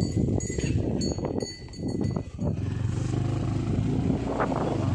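A bell on a cow's neck clinks in roughly the first second and a half as the motorcycle passes the cattle. Underneath, the motorcycle's engine runs steadily with wind noise, the engine coming through more clearly in the second half.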